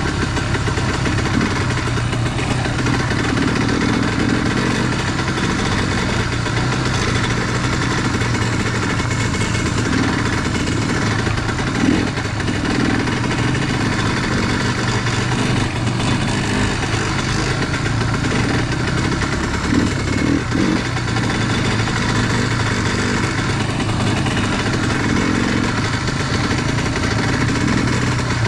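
Dirt bike engine running steadily at low speed, heard from the bike itself, with a few brief knocks about twelve seconds in and again around twenty seconds in.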